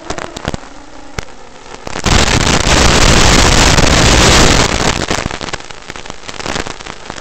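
Loud crackling static hiss from an analog FPV video link, with a few sharp clicks at first. It swells about two seconds in and eases somewhat after about five seconds. It matches the picture breaking up as the Tinyhawk II climbs high and far.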